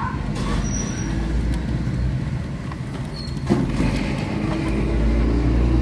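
Low rumble of a motor vehicle engine running, swelling louder over the last second or so, with a sharp tap about three and a half seconds in.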